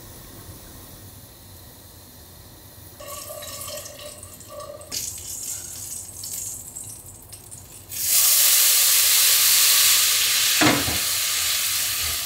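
Diced guanciale frying quietly in its own fat in a frying pan. About eight seconds in, a loud, steady sizzle starts up as the cooked spaghetti, wet with its pasta water, goes into the hot fat. A single knock of the tongs against the pan sounds near the end.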